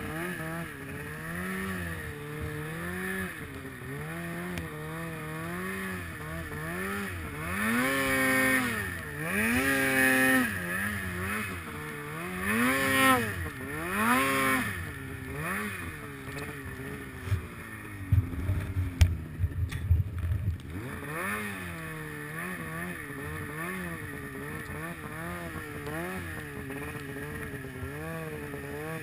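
Polaris Pro-RMK snowmobile's two-stroke engine running, revs rising and falling over and over as it works through deep powder. About two-thirds of the way through come a low rumble and a few sharp knocks.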